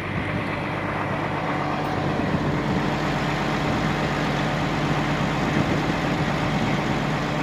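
CAT 345 excavator diesel engine running, heard from the operator's cab, with a steady even drone. This is the engine fault being shown, error code 268, an intermittent rise and fall in engine speed as if about to shut down, which the mechanic blames on the engine ECM's software.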